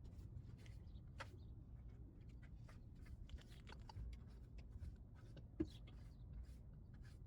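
Near silence: a low steady hum with faint scattered clicks and rustles, and one sharper click about five and a half seconds in.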